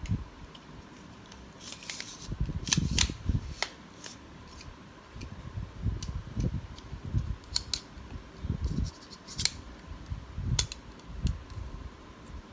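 Scissors cutting open parcel packaging: irregular runs of sharp snips mixed with low thumps from handling the parcel.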